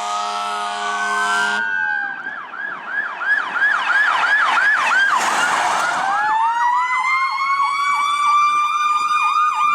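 Fire truck air horn blasting steadily over a wailing siren, the horn cutting off about one and a half seconds in. Emergency vehicle sirens follow: a fast yelp, then from about six seconds in a slow rising wail over a second yelp.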